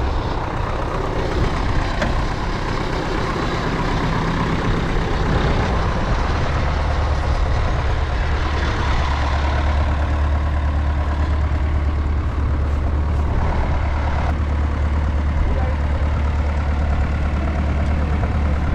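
Farm tractor engine idling steadily, a low drone that grows stronger about six seconds in.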